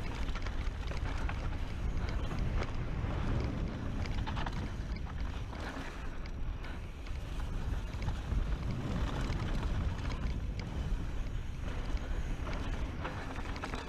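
Wind buffeting the microphone on a fast mountain-bike descent, with tyre noise on dirt and frequent clatters and knocks as the bike rattles over bumps.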